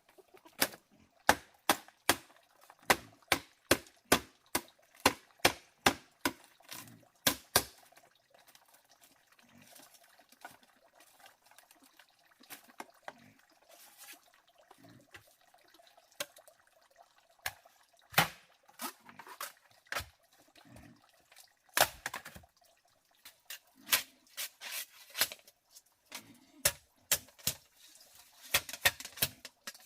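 A series of sharp taps or knocks, about two a second at first, then irregular and softer after about eight seconds, with a few louder ones later.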